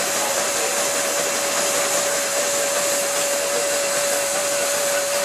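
Showman's steam road locomotive running its belt-driven dynamo to generate power for the lights: a steady whirring rush with a constant high hum from the spinning dynamo.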